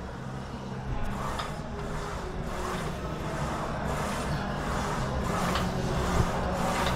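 Steady gym background hum, with a few light clicks from a Smith machine bar as it is pressed up and down on its rails.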